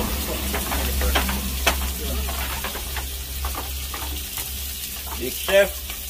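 Food frying in hot oil in a pot: a steady sizzle, with a spoon clicking irregularly against the pot as it is stirred, over a steady low rumble. A short rising-and-falling cry cuts in near the end.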